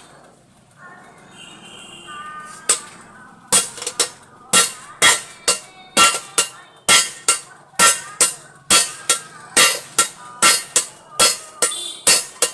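Hammer blows on the metal of a pressure cooker, a steady run of sharp ringing strikes about two to three a second that starts a few seconds in.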